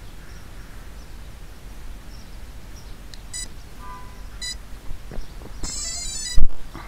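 Quadcopter motors sounding their speed-controller start-up beeps after the flight battery is connected: single short beeps about three and four and a half seconds in, then a quick run of rising tones near the end. A loud thump follows the tones.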